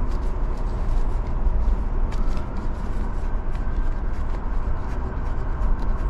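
Steady outdoor rumble and hiss, with scattered small metal clicks and rattles from unscrewing a valve core removal tool off a refrigerant service port.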